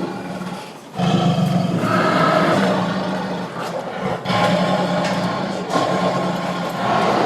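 Tiger roaring, a run of long, deep roars one after another, starting about a second in after a brief lull.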